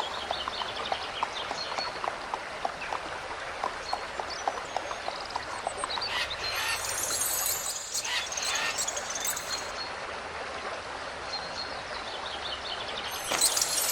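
Cartoon nature ambience: birds chirping over a steady rushing wash like a running stream, with scattered light ticks. The chirps come in clusters about halfway through and again near the end.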